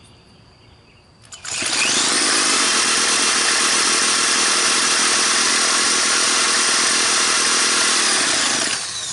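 Two-stroke string trimmer engine spun over by an electric drill with a starter bit, catching about a second and a half in and running at a steady high speed, then dropping to a lower speed near the end.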